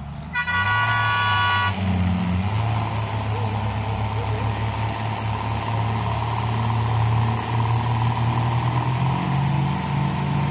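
A truck horn sounds once for just over a second. Then a heavy truck engine runs loudly and steadily, part of the effort to tow a truck stuck in the mud.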